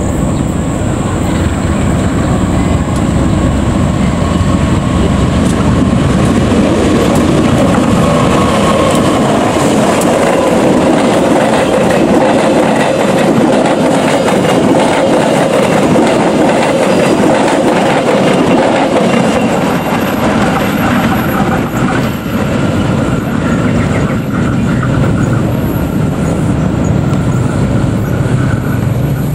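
Parcel train of green KAI Cargo wagons passing close by, its wheels running loudly and steadily on the rails.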